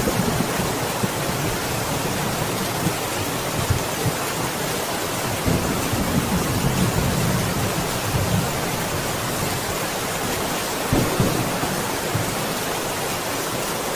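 Steady heavy rain with low thunder rumbling at times, strongest at the start, through the middle and again about eleven seconds in.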